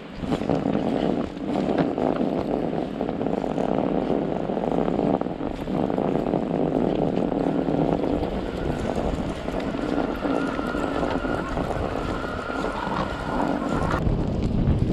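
Strong wind blowing across the microphone during a ride, a constant rushing noise that turns into heavier, lower buffeting near the end.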